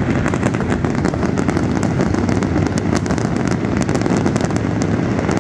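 A big fireworks display going off in a continuous barrage: a dense, steady rumble of shell bursts with many sharp pops on top.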